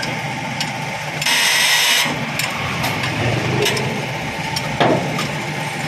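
Hand-tool work on a lorry's leaf-spring shackle pin as its lock is fitted: scattered metal clicks and knocks, with a sharper knock near the end. An engine runs steadily underneath, and a hiss lasts about a second, about a second in.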